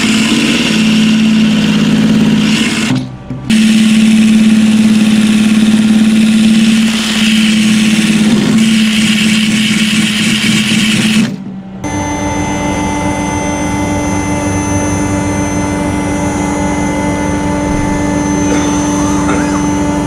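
Die grinder with a wire wheel running at a steady pitch as it strips underbody coating and rust from a car's rocker panel. It stops briefly about three seconds in. Just past the middle the sound cuts off and a quieter, steadier whine takes over.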